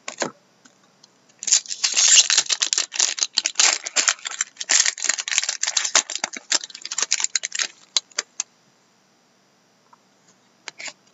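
Foil wrapper of a trading-card pack being torn open and crinkled in the hands: a dense run of crackling from about a second and a half in until about eight seconds in, then a few soft clicks.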